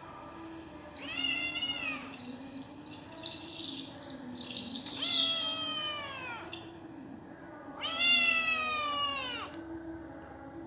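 Persian cat meowing three times in long, drawn-out calls that fall in pitch at the end.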